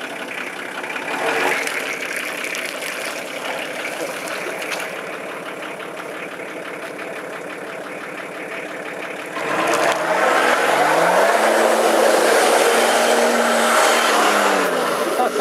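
Off-road vehicle engine running steadily, then, about nine seconds in, revving up hard, holding high revs for a few seconds and dropping back near the end.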